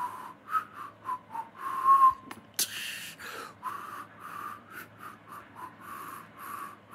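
A man whistling and breathing close to the microphone: short wavering whistled notes, the loudest held briefly about two seconds in, then a sharp pop and a run of rhythmic breathy puffs, about two a second.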